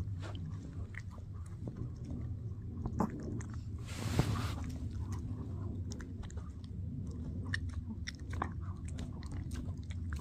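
Shih Tzu gnawing on a bully stick: irregular crunching and clicking of teeth on the chew, with a brief louder noisy burst about four seconds in.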